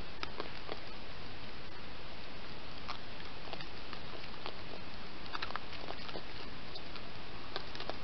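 Two raccoons foraging on dry leaf litter: scattered small irregular clicks and crackles of their feeding and rustling, over the steady hiss of a trail camera's microphone.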